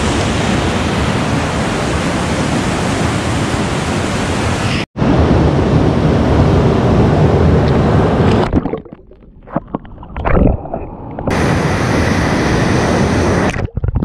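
Fast mountain river water rushing, the Parvati River, a steady loud noise. It breaks off sharply about five seconds in and again near the end. For a few seconds past the middle it turns muffled and gurgling, as when the microphone is under the water.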